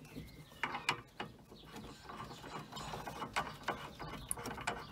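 Hydraulic hose fitting being screwed onto a control valve by hand: irregular small metal clicks and scrapes as the threads and hose fitting turn.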